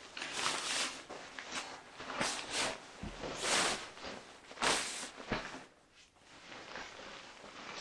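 Rustling and swishing of a nylon bivvy bag's fabric as it is pulled, spread and smoothed out by hand, in a series of brushing strokes, the loudest about halfway through and quieter near the end.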